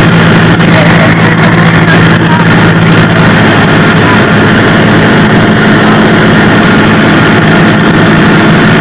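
A Cessna 172R's Lycoming IO-360 four-cylinder engine and propeller drone steadily, heard from inside the cockpit in flight. The tone shifts up a little about three and a half seconds in.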